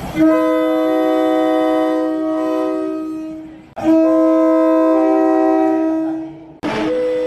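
Thai railway locomotive air horn sounding two long chord blasts of about three seconds each, several pitches at once; near the end a horn with a different chord starts.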